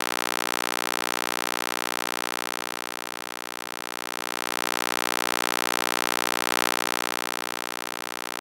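Synthesized EMDR stimulation sound: a steady electronic drone of many held tones over a soft hiss, slowly swelling and fading, loudest about two-thirds of the way through.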